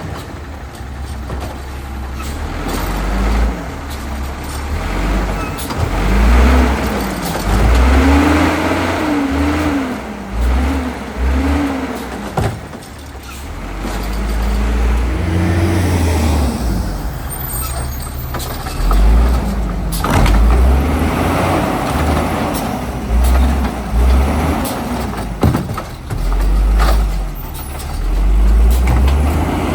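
Autocar WX refuse truck engine revving up and falling back again and again as the truck works its route, with a heavy low rumble and several sharp knocks along the way.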